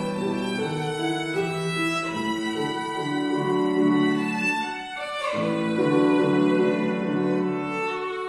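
Solo violin playing a melody of held, changing notes with piano accompaniment, with one sharp accented bow stroke about five seconds in.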